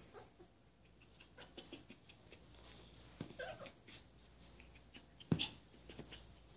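Yorkshire terrier giving a brief whine about halfway through, over faint rustling and ticking as a dog shoves a plush dog bed across the carpet. A single sharp knock about five seconds in is the loudest sound.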